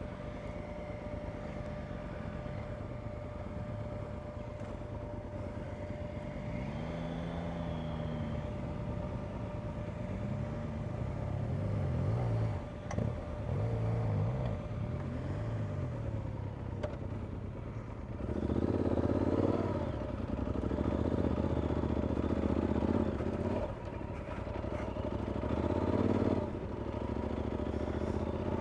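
Adventure motorcycle engine idling, then revving up and down as it pulls away through loose sand. From about 18 seconds in it runs louder and rougher under steady riding, with a rising rev near the end.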